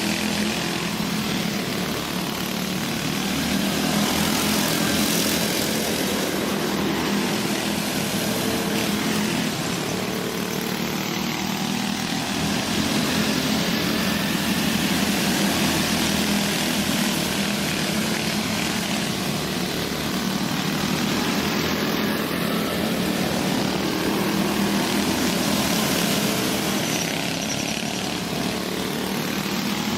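Several go-kart engines running at racing speed on a dirt track, a steady buzz that swells and fades a little as the karts pass.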